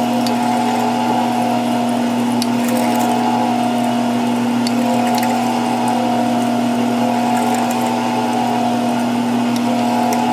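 Metal lathe driven by a treadmill motor, running steadily while a drill bit bores into the end of a metal shaft. It gives a constant hum with a slowly wavering whine and a few faint, high ticks.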